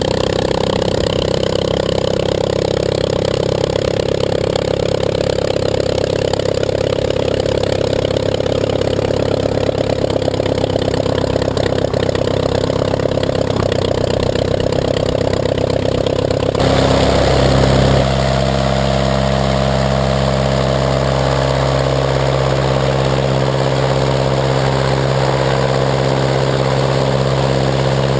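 Rebuilt Walter Minor 4-III inverted four-cylinder air-cooled aircraft engine, 105 hp, running steadily on a test stand and turning a ground-adjustable aluminum propeller. Its note shifts abruptly about seventeen seconds in, then runs steady again.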